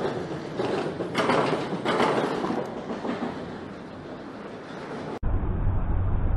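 Rubbing and scraping of a glove and cloth wiping black magnetic sand off a magnet-fishing magnet, with louder scrapes about one and two seconds in. About five seconds in, the sound cuts abruptly to a steady low rumble.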